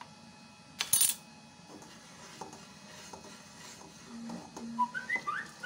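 A metal spoon knocking and scraping against a cooking pot, with one loud scrape about a second in and lighter clicks and knocks after it.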